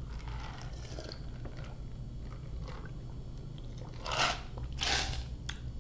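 A man drinking from a large paper fast-food soda cup, close to the microphone: two short, noisy sips about four and five seconds in, after faint sounds of the cup being handled.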